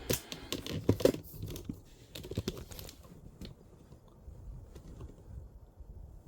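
Packaging crinkling and small parts clicking as the unboxed door-lock items are handled, with several sharp clicks about a second in, fading out after about three seconds.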